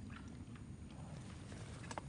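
Feral hog moving and rooting in leaf litter: faint scattered rustles over a low, steady rumble, with one sharp click near the end.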